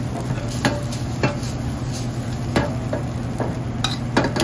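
Metal utensil stirring noodles and cabbage in a steel wok over a gas burner: scattered sharp clinks of the utensil against the pan, about five in all, over a steady hiss.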